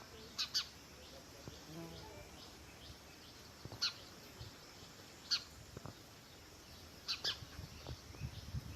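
House sparrows chirping: short, sharp chirps, some single and some in quick pairs, a second or two apart.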